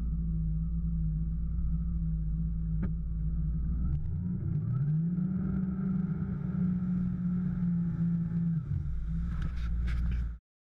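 Yamaha VXR WaveRunner engine running steadily. About four seconds in it revs up to a higher pitch and holds, then eases back down near the end, before the sound cuts off suddenly.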